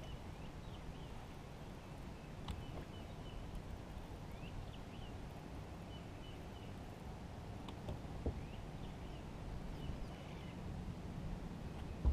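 Small birds chirping in short, scattered calls over a steady low rumble, with a few faint clicks and a thump right at the end.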